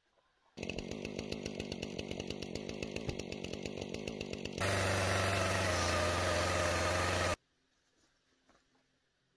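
Two-stroke chainsaw running unevenly at low speed with a pulsing beat, then opened up to a louder, steady full-throttle run about halfway through. It starts and stops abruptly.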